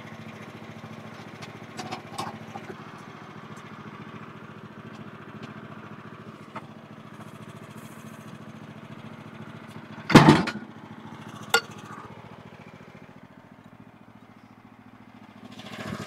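Portable band sawmill's engine idling steadily while a log is turned with a cant hook. About ten seconds in, the log thumps over onto the bunks, and a sharp knock follows a second later.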